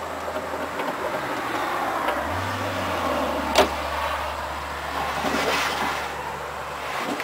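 Power saw milling a log into boards, running with a steady cutting noise over a low motor hum. There is one sharp crack about three and a half seconds in.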